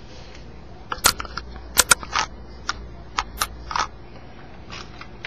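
Camera handling noise: a quick series of sharp clicks and knocks as the recording device is reached for and handled, the loudest about one and two seconds in, over a low room hum.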